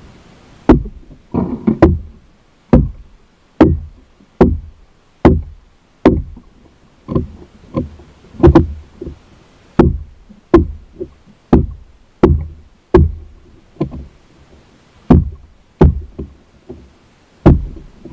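Machete chopping through tall grass and brush to clear a path, a steady run of sharp chops a little faster than one a second.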